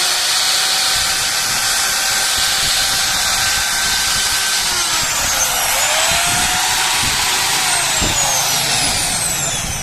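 Repaired handheld electric cutter machine running steadily on test; its motor whine sags and picks up again about halfway through, then slides down near the end.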